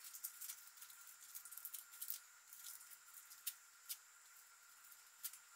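Faint crinkling and light ticks of small hardware being handled in the hands, dense for about the first two seconds, then a few single clicks.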